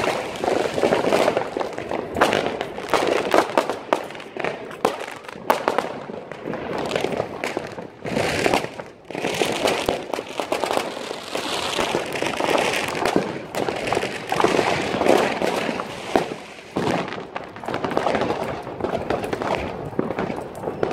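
Fireworks and firecrackers going off without a break: a dense run of bangs and crackles.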